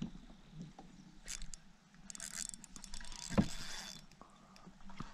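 Handling noises in a plastic kayak: scattered clicks and rustles from rod and gear, with one dull thump about three and a half seconds in.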